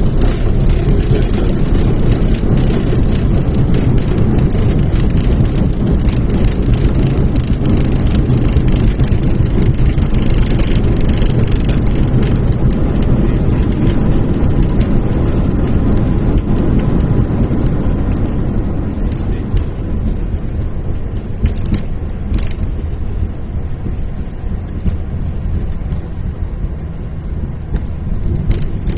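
Boeing 737-800 cockpit noise during the landing roll: a loud, steady roar of engines, airflow and wheels rumbling on the runway. It eases off after about eighteen seconds as the airliner slows, with a few scattered ticks near the end.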